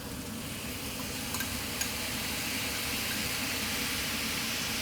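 Sauce sizzling and steaming in a hot pan of peppers, onion and tomato: a steady hiss that builds over the first second and then holds, with a couple of faint clicks.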